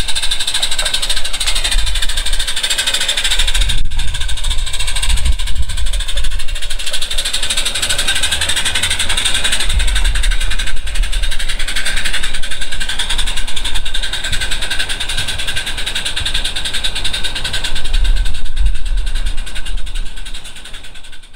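Multirotor camera drone whirring steadily, its propeller pitch rising and falling slightly, with an uneven low rumble underneath.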